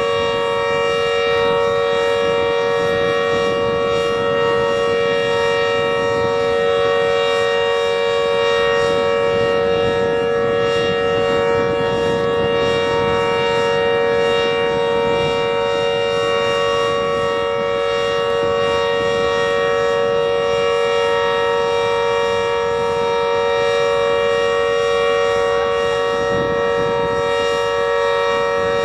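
Civil defense warning siren sounding one steady, unbroken tone made of several pitches at once, with a low rushing noise underneath; it does not rise or fall.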